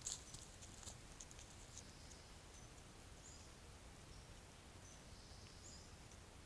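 Faint crackles and rustles in the first two seconds as a deer moves right past the trail camera, one sharp crack at the very start the loudest. After that, quiet forest ambience with a few faint, short high chirps.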